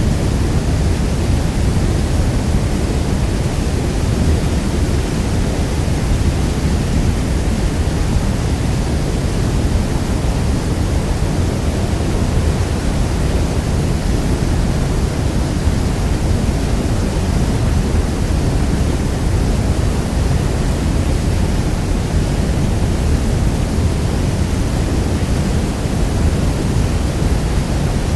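Niagara Falls: a steady, deep rush of heavy falling water, unchanging throughout, its weight in the low end.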